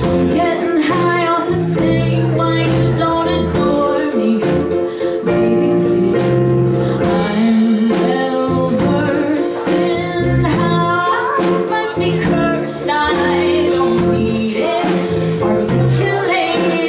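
Live band music: a woman singing over keyboards, bass and drums, with a steady drum beat and sustained keyboard chords.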